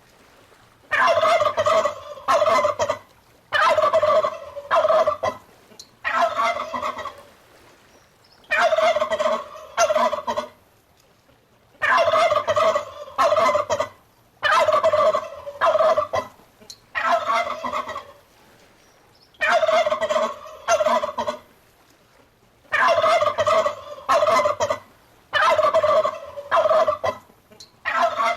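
Turkey gobbling over and over: short rattling gobbles, often two in quick succession, with pauses of a second or two between.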